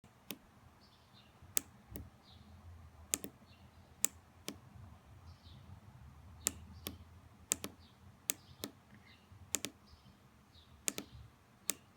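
Sharp clicks of a pushbutton key being pressed and released at an uneven pace, many in close pairs, as Morse code is tapped into a homemade Morse code tutor machine.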